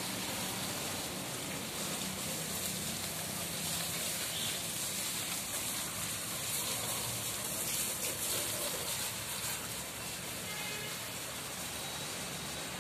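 Water from a garden hose spraying and splashing onto a small tractor and the wet paving, a steady hiss.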